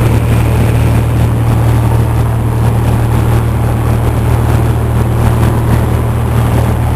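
Cessna 172's piston engine and propeller droning steadily, a constant low hum heard from inside the cabin.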